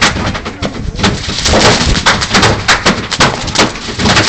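Stored fireworks going off in a burning garage: a dense, rapid run of crackles and bangs, many a second, growing thicker and louder about a second in.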